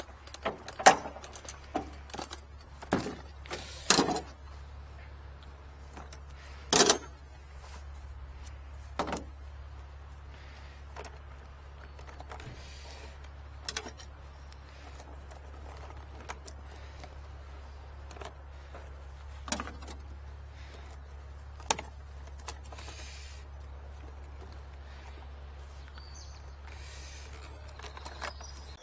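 Scattered clanks, knocks and clicks of metal tools and equipment cases being handled at the back of a drain-cleaning service truck, over a steady low hum.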